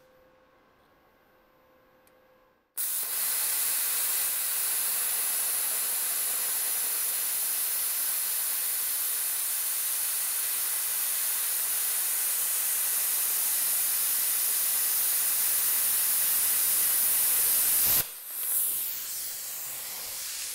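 Harbor Freight Titanium 65 amp plasma cutter, turned all the way up to 65 amps, cutting through a steel hammer head just over an inch thick: a loud, steady hiss starts suddenly about three seconds in and holds for about fifteen seconds, then cuts off abruptly, leaving a softer hiss that fades.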